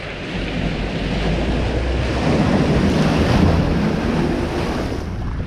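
Kia Sorento ploughing through a mud hole: its engine is working under load while the spinning tyres throw mud and water. It gets louder as the SUV passes close by about three seconds in, with wind on the microphone.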